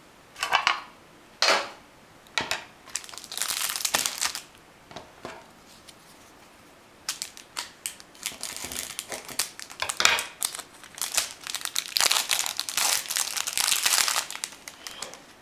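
Plastic wrap around a pack of trading cards being slit with a small blade and peeled off. A few short scrapes and rustles come first, then a quieter spell, then steady crinkling of the plastic from about halfway on.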